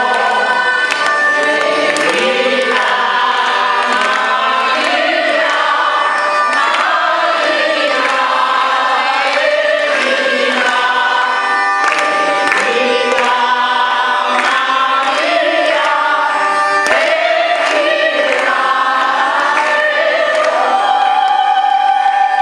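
Group of voices singing a traditional nenia to the Immacolata, with the congregation clapping along. Near the end the singers settle on one long held note.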